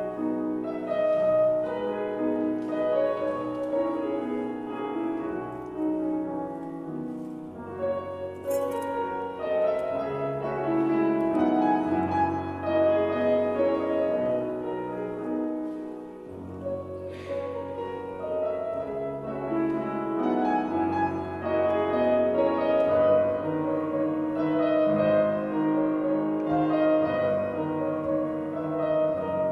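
Grand piano played solo: a piece of held chords over a moving bass line, the notes shifting every second or so.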